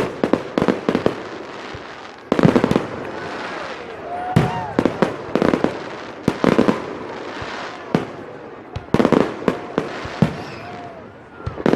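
Fireworks display exploding: repeated sharp bangs in clusters every second or two, the loudest volley about two and a half seconds in.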